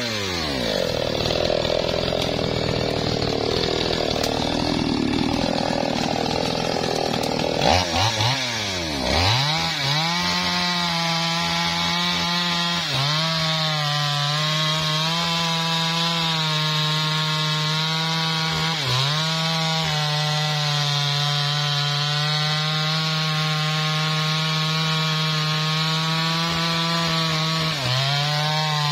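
Small chainsaw cutting into the trunk of a large sengon (albizia) tree under heavy load in a felling cut. For the first eight seconds the engine labours with a wavering pitch. It drops and picks up sharply a couple of times, then runs at a steady high pitch with a few brief dips.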